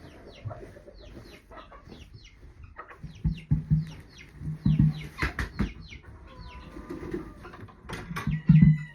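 Chickens clucking, with a string of short high chirps throughout and a few deeper clucks about three and a half, five and eight and a half seconds in.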